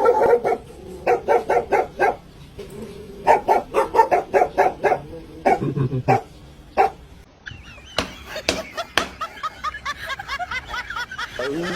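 A dog barking in quick runs of short barks, followed in the second half by a series of short, high-pitched calls.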